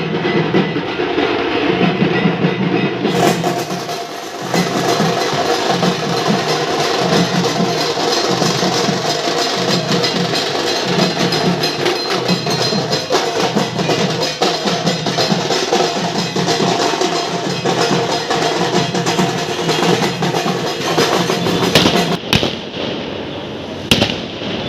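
Dhak drums beaten together in a steady, dense rhythm by dhakis, the sharp stick strokes packed close. A brighter layer of sound joins about three seconds in, and the drumming breaks off near the end.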